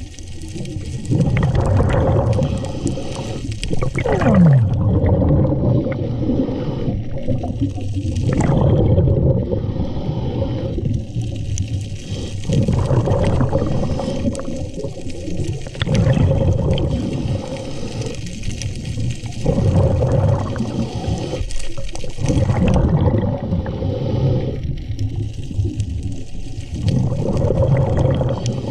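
Underwater recording of moving water, gurgling and rushing against the camera, swelling and fading every few seconds, with one falling tone about four seconds in.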